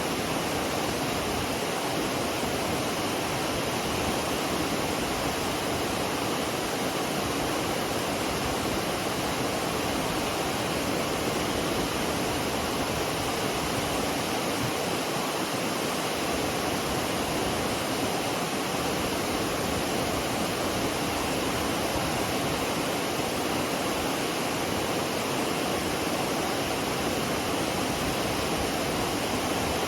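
McCloud Falls rushing: water pouring steadily over the falls, an even, unbroken noise that does not change.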